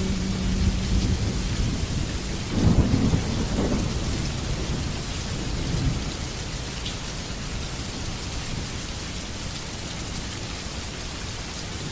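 Steady rain with a roll of thunder about two and a half seconds in, a low rumble that swells and dies away over a few seconds.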